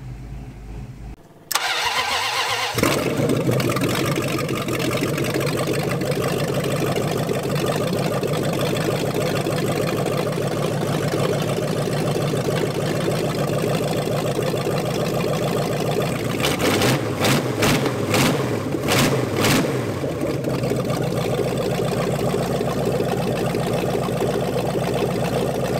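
The newly assembled carbureted V8 in an old Dodge police car cranks for about a second, catches, and then runs steadily. It is revved a few times around two-thirds of the way through.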